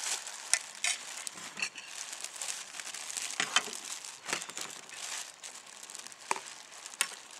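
Packaging crinkling as it is handled: an irregular run of crackles and rustles.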